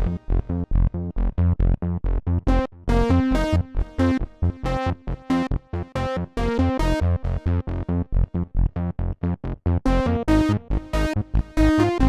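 Dave Smith Instruments Prophet Rev2 polyphonic analog synthesizer playing a quick rhythmic run of short, plucky notes over deep bass notes.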